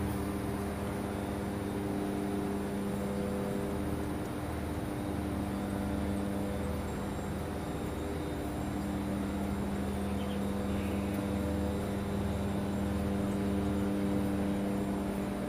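Cable-making factory machinery running with a steady hum of several held tones over a low throb.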